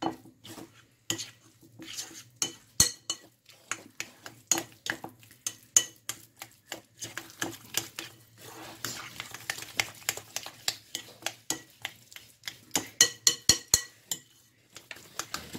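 A metal fork stirring and mashing thick pumpkin fritter batter in a glass bowl, with quick, irregular clinks and scrapes of the fork against the glass. The stirring pauses briefly near the end.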